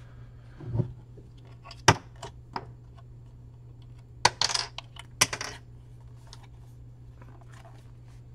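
Hands handling a plastic-cased 40-volt lithium tool battery pack and pulling test leads out of its terminals: scattered sharp clicks and knocks, the sharpest about two, four and five seconds in, with a short scrape between about four and five and a half seconds. A steady low hum runs underneath.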